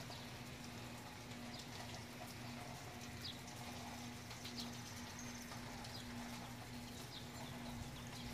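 Faint outdoor rain ambience: light rain ticking and dripping, with small birds giving short high chirps every second or so over a faint steady hum.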